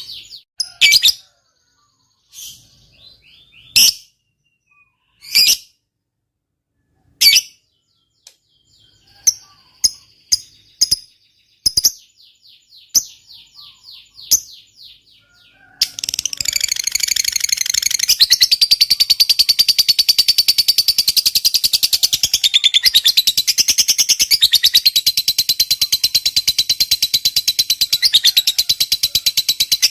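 Lovebird calling: sharp, separate chirps at first, then about halfway through a long, rapid, unbroken chattering trill (the 'ngekek panjang').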